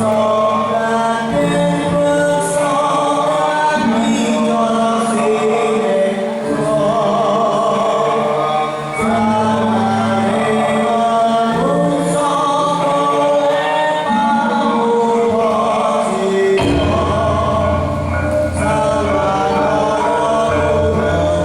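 Dance accompaniment music: a group of voices singing wavering, drawn-out lines over sustained low notes that shift every couple of seconds, with occasional sharp percussive strikes. A deeper bass comes in about two-thirds of the way through.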